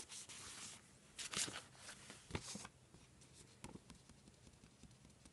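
Faint rustling of paper sticker sheets being handled, with a few light taps.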